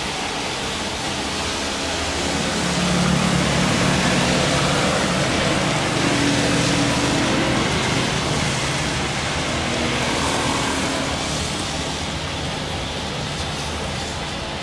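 Jet engines of a Lion Air Boeing 737 at takeoff power during its roll down a wet runway: a steady distant rushing noise that swells about two to three seconds in, with a faint low hum that shifts in pitch.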